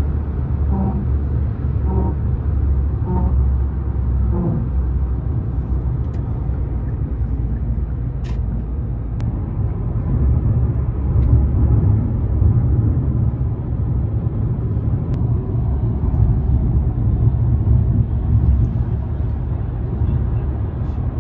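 Steady low road rumble inside a moving car, the tyre and engine drone of driving along a highway.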